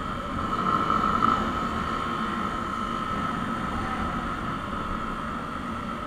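Motorcycle riding along at road speed: wind rushing over the microphone, with the bike's engine running steadily underneath and swelling briefly about a second in.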